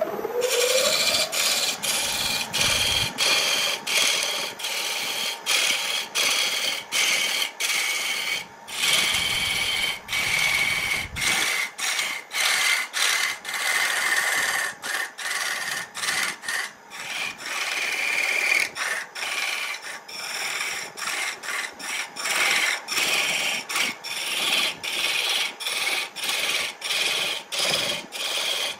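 A wood lathe's motor comes up to speed in the first second with a rising hum. Then a hand-held turning tool cuts into the spinning wood blank with a steady rasping scrape as it peels off shavings, broken by many brief gaps where the cut eases off.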